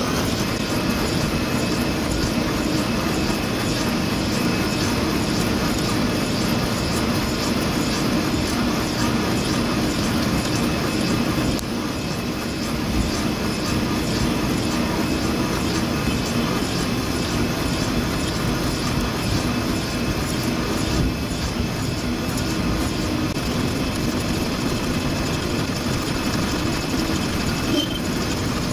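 Milling machine running as its boring bar turns and cuts inside the bore of a steel forklift steering axle housing: a steady machining drone that barely changes throughout.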